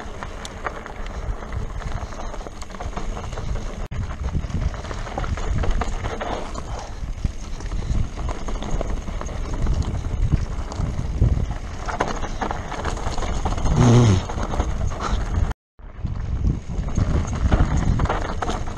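Mountain bike descending a rocky, dusty dirt trail: tyres crunching over loose gravel and the bike rattling and knocking over bumps, with wind rumbling on the camera's microphone. About three-quarters of the way in a brief low pitched sound is the loudest moment, and just after it the sound cuts out for a split second.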